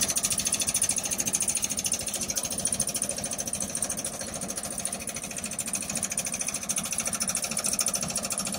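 A steady, fast mechanical rattle that runs without a break.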